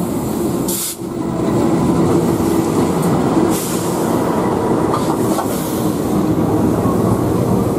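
Diesel-hauled passenger train pulling slowly into the station platform: the locomotive's engine running as it passes, then the coaches rolling by on the rails.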